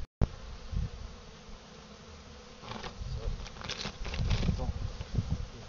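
Honeybees, apparently European dark (black) bees, buzzing as they crowd and fly about a hive entrance. The buzzing swells for a while about three to four and a half seconds in.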